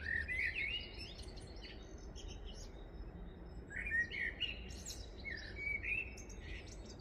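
Birds chirping and singing in quick warbled phrases, one bout at the start and a second, busier bout from about four to six seconds in, over a faint low background rumble.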